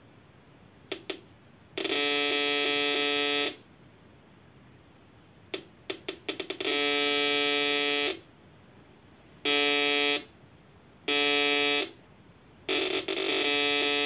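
Homemade K157UD2 metal detector sounding its alarm five times as a coin is passed over the search coil, each a steady low buzzing tone lasting about one to two seconds. Short crackling clicks come before the first two tones.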